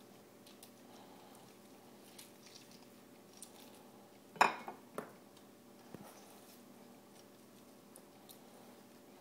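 Lemon halves being twisted by hand on a metal citrus reamer, with faint squishing and scraping. One sharp knock comes about halfway through, followed by a couple of lighter clicks.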